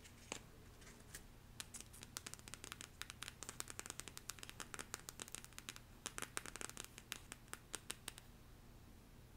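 Long fingernails tapping rapidly on a small cardboard box: a quick, irregular patter of light, crisp clicks that stops about eight seconds in.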